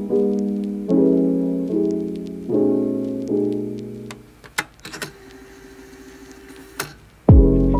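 Background lo-fi music: soft piano chords that die away about four seconds in, leaving a short quieter gap with a few faint clicks. The beat then comes back loudly with deep bass near the end.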